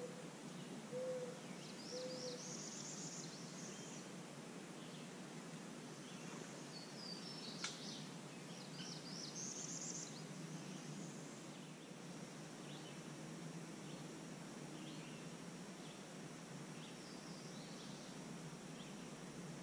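Woodland birds calling over a steady outdoor hiss: three short low hoots about a second apart at the start, then two bursts of high, trilling song. A single sharp click comes near the middle.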